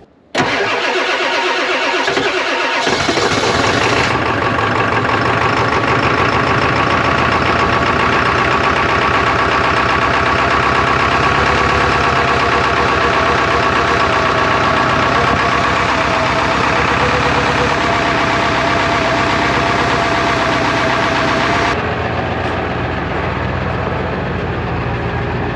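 A truck engine cranks for about two seconds, catches and settles into a steady idle.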